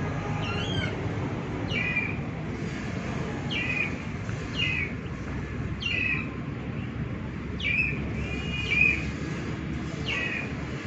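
A young chick peeping: a string of about eight short, loud peeps, each sliding down in pitch, roughly one a second, over a steady low background rumble.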